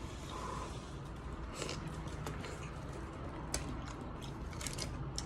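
Faint eating sounds, a few short clicks and rustles scattered through, over a steady low background hum.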